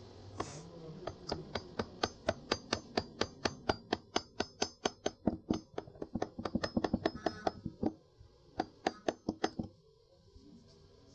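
Mini sewing machine's mechanism clicking in a quick, even rhythm of about four to five clicks a second, as if stitching or being cycled; it pauses briefly near eight seconds, runs on again, and stops near the end.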